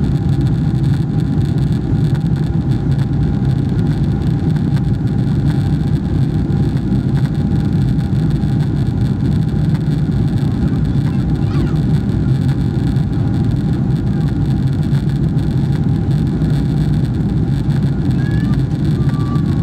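Steady cabin noise of a Boeing 777-300ER heard from inside the passenger cabin: a deep, even rush of its GE90 engines and airflow with a thin steady hum above it.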